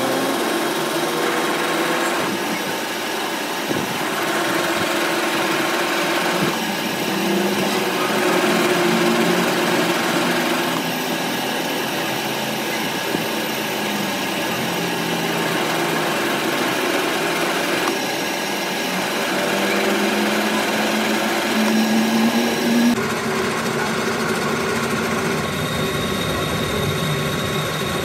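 Metal lathe running while a tool bit cuts spline teeth into a steel axle shaft: a steady mechanical whir with a hum that drifts up and down in pitch. The tone changes abruptly about 23 seconds in.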